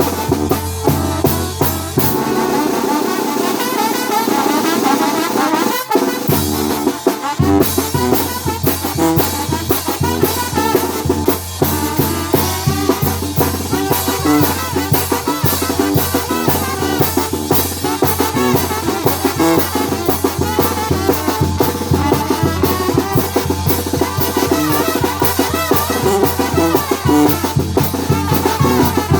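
A brass band playing, with trumpets and trombones over drums keeping a steady beat. The deep bass drops out for a few seconds early on and then comes back in.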